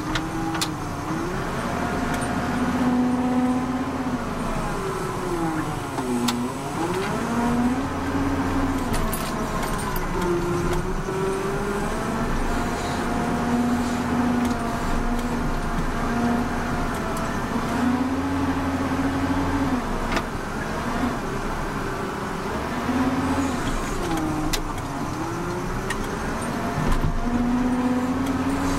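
The Volvo BM L70 wheel loader's six-cylinder Cummins diesel engine runs under working load, heard from inside the cab. Its speed steps up and down repeatedly, and twice it dips sharply and climbs straight back, about six seconds in and again near the end.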